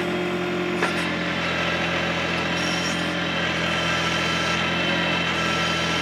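John Deere 1025R compact tractor's three-cylinder diesel engine running at a steady speed while it drives the backhoe hydraulics working the bucket slowly, with its flow held down to what a stock tractor gives at full throttle.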